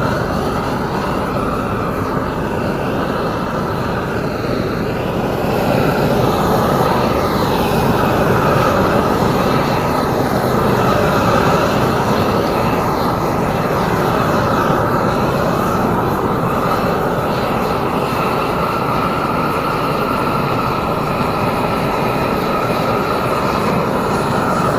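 Heavy asphalt-paving machinery running steadily, a loud, continuous mechanical rumble that gets a little louder about six seconds in.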